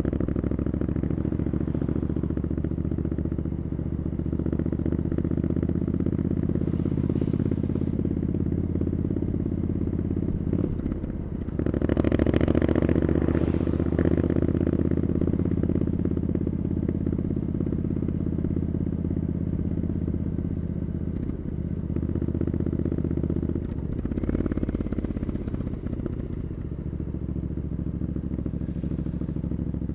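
Triumph Scrambler 900 parallel-twin engine running through an Arrow exhaust while riding along. It drops briefly about eleven seconds in, then comes back louder for a couple of seconds, and dips once more about two-thirds of the way through.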